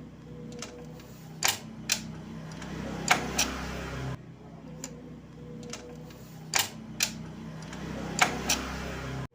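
Motorcycle gear shifting: sharp mechanical clicks and clunks over a steady running engine, first two clicks, then two more with a louder rush of engine noise. The same sequence is heard twice and cuts off abruptly.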